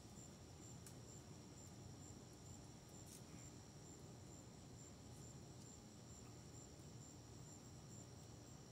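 Crickets chirping faintly in a steady high-pitched pulsing trill over otherwise near-silent background, with a couple of faint ticks.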